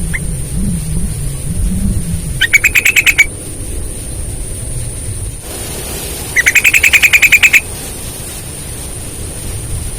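Sooty-headed bulbul calling: two quick runs of sharp, rapidly repeated notes, the second run longer, a few seconds apart, over a low rumble.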